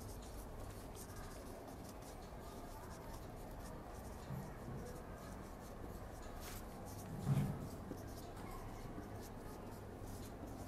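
Marker pen writing on a whiteboard: faint, repeated scratchy strokes. A short low sound about seven seconds in.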